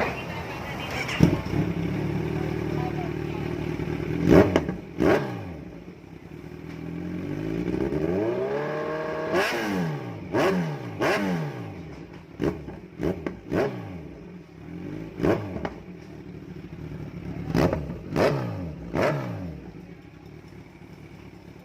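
Kawasaki Ninja 1000's inline-four engine through a Yamaha R1 full exhaust system with an underbelly pipe, revved stationary for a sound check. It runs steadily for a few seconds, then makes one slow rising rev that peaks about nine seconds in. After that comes a string of short, sharp throttle blips, the revs falling back after each.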